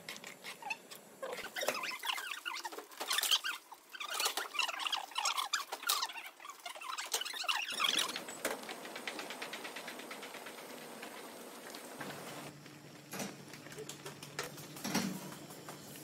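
Broth at a rolling boil, bubbling and popping, with a metal skimmer scraping and clinking in the pot for about the first eight seconds. After that, a steadier, quieter hiss with a few scattered knocks.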